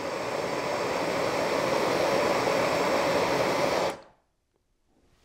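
Propane hand torch (Bernzomatic head on a propane cylinder) burning with a steady rushing hiss that builds gradually, then cuts off suddenly about four seconds in as the valve is shut.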